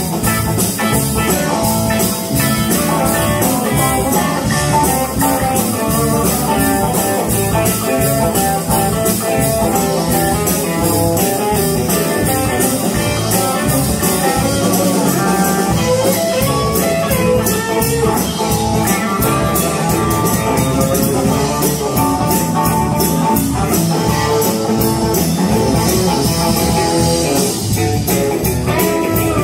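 Live band playing with electric guitar, bass guitar and drum kit, a steady beat throughout.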